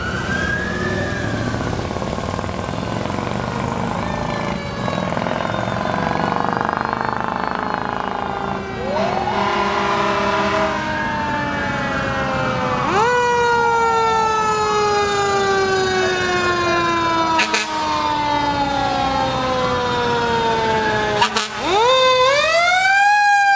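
Several fire engine sirens sounding at once as the trucks approach: wails rising and falling, and long tones that slide slowly down, starting again every few seconds. Near the end a closer, louder siren sweeps sharply up.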